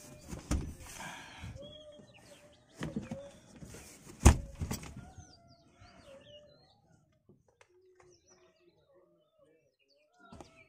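Rear seat back of a Maruti Suzuki WagonR being folded down by hand: a few knocks and rustles of the seat, with one sharp, loud clunk about four seconds in. Birds chirp faintly in the background, and after about five seconds they are all that is heard.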